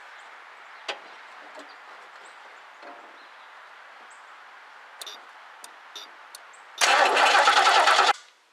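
A few faint clicks, then near the end a 1969 Lincoln Mark III's 460 V8 is cranked loudly on its starter for about a second on a first start attempt after a carburettor install, cut off suddenly before it can be heard to catch.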